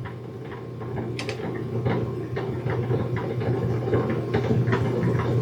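A steady low electrical hum, with irregular small clicks and taps of objects being handled.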